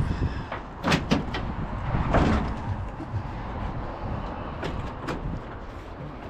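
Several sharp clunks and knocks, a cluster about one to two seconds in and two more near the end, over a steady low rumble.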